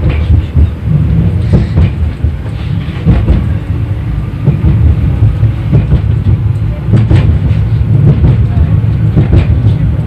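Low-floor 71-931 Vityaz tram running between stops, heard from inside the cabin: a loud, steady low rumble of wheels on rails, broken by irregular knocks and rattles.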